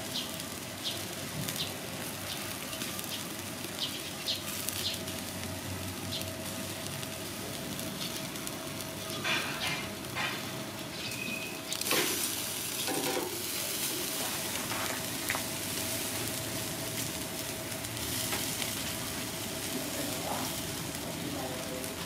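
Crocodile tenderloin sizzling on a wire grill over charcoal, with steady small crackles. A few louder scrapes and knocks come about halfway through.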